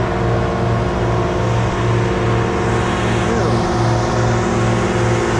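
An engine running steadily at a constant speed, with a regular low pulsing a few times a second.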